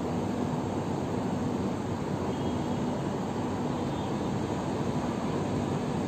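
Steady low rumble of distant city traffic at night, an even wash of noise with no single vehicle standing out.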